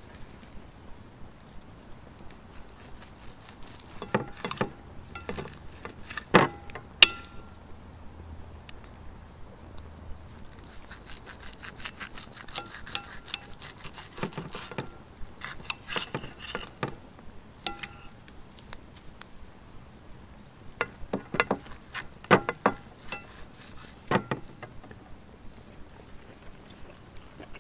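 Steak knife and fork cutting through a thick ribeye steak on a ceramic plate: sharp clicks and scrapes of metal against the plate, some ringing briefly, coming in three spells of cutting.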